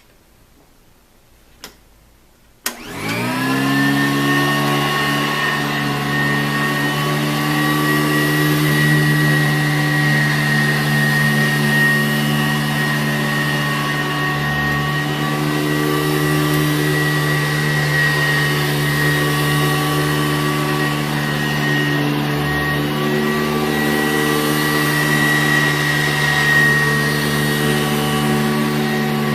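Sanitaire SC887B-2 commercial upright vacuum cleaner switched on about three seconds in: its 7-amp motor spins up within a second, then runs steadily with a high whine.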